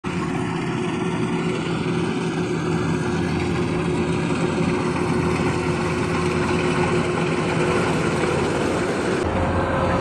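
Kubota rice combine harvester's diesel engine running steadily as the machine cuts standing rice, a constant drone with a low hum under it. The sound shifts a little past nine seconds in.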